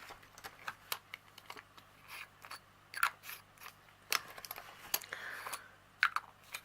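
Irregular small plastic clicks, taps and rustles from a multi-slot diamond painting drill storage case being handled, its little bottles opened and closed to check them.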